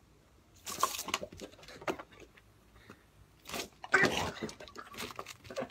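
Garden hose spray nozzle hissing in short bursts, with a dog snapping and biting at the water and splashing. The loudest burst comes about four seconds in, as the dog leaps at the spray.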